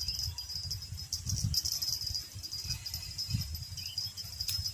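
Insects chirping in a steady, high-pitched pulsing chorus, with a low rumble underneath.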